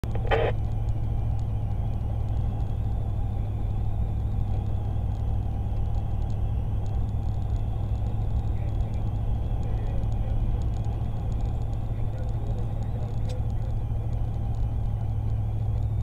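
Steady low road and engine rumble of a car driving, heard from inside the cabin. A brief sharp sound comes about half a second in.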